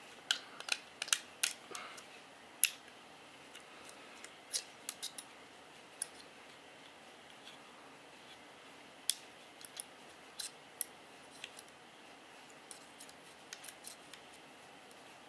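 Small sharp metal clicks and ticks at irregular intervals as a pin and a thin tool are worked against a Glock 17 Gen 4 pistol frame, pressing the slide release spring down to push a pin through.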